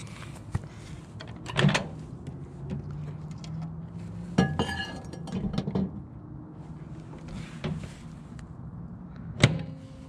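Microwave oven door being opened and handled, with scattered knocks and clunks, then shut with a sharp latch click near the end.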